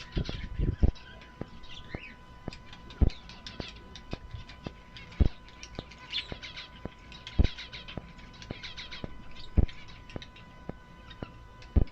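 Aviary of small finches, zebra finches among them, chirping with many short overlapping calls. A loud dull thump recurs about every two seconds, with faint ticks in between.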